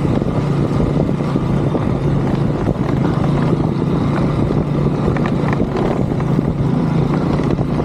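KTM RC200's single-cylinder engine running, loud and steady, with a rattling noise from the rear of the bike and a few sharp clicks about five to six seconds in. The owner traces the rattle to a loose chain guard whose small rubber mount has worn.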